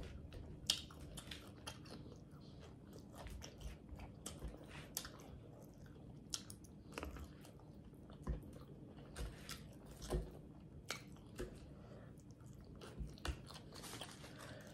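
A person chewing Caesar salad with salmon close to the microphone: faint, irregular crunching of lettuce with mouth smacks, and scattered short clicks throughout.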